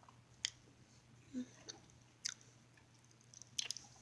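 A person chewing a sandwich close to the microphone. There are a few sharp, crisp mouth clicks: about half a second in, just after two seconds, and once more near the end.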